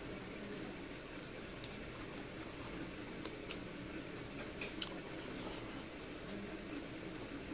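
Fingers mixing and squeezing cooked rice with dal on a steel plate: soft squishing, with a few small sharp clicks scattered through, over a steady low background noise.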